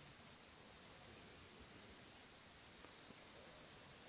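Very faint, short, high-pitched squeaks of bats, scattered irregularly over a steady high hiss.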